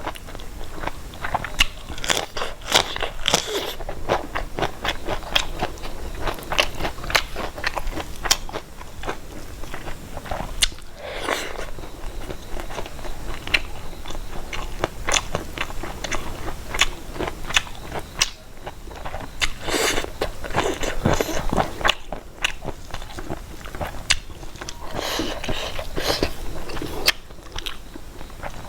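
Close-miked eating of a mukbang meal: chewing and crunching mouthfuls, with many sharp mouth clicks and a few longer, noisier smacking stretches.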